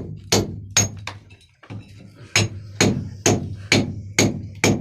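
A hammer striking repeatedly in a steady rhythm, about two blows a second, with a pause of about a second near the middle.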